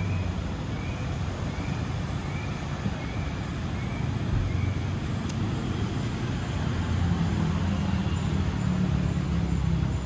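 Steady rumble of road traffic, with a bird chirping over it about twice a second through the first half.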